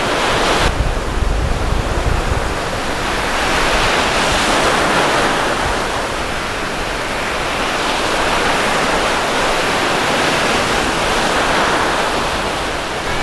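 Small waves breaking and washing in over shallow water: a steady hiss of surf that swells and eases every few seconds. Wind buffets the microphone in the first couple of seconds.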